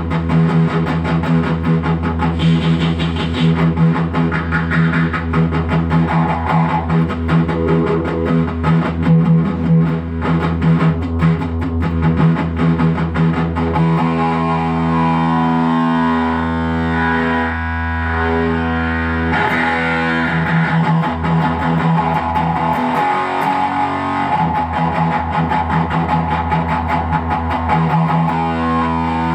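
Distorted electric guitar played through a Dunlop FFM1 Silicon Mini Fuzz Face that is boosting an overdriven amp. Busy picked riffing gives way about halfway through to held chords left to ring.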